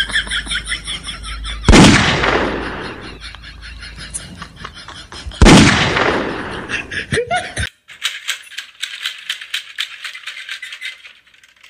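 Two loud gunshot sound effects, about two seconds in and again about five and a half seconds in, each with a fading tail: the finger-gun 'bang' played at the pets. After them, a fast, even run of light clicking.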